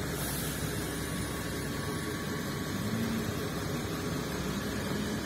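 City bus engine running nearby: a steady low rumble with a hiss over it.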